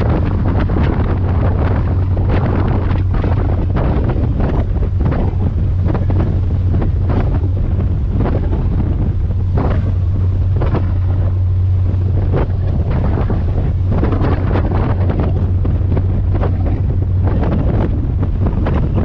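Strong wind buffeting the microphone aboard a moving ferry, over the steady low drone of the boat's engines.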